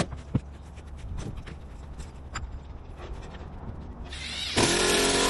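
A few light clicks and knocks, then about four seconds in a power drill spins up with a rising whine and runs loudly for about a second, driving a fastener through a roofing plate.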